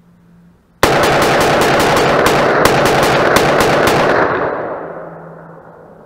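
A semi-automatic firearm's magazine dumped in rapid fire. Shots come in a fast, continuous string starting about a second in and lasting about three and a half seconds, then the echo dies away.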